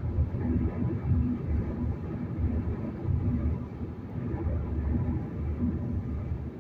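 Road noise inside a car at highway speed: a steady low rumble.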